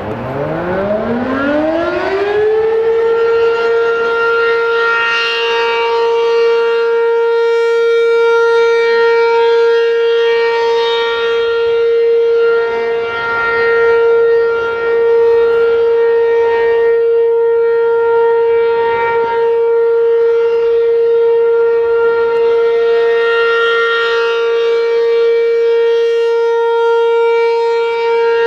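ACA P-15 outdoor warning siren winding up, its pitch rising over the first two or three seconds, then holding one steady tone. This is a steady alert signal sounded as a test.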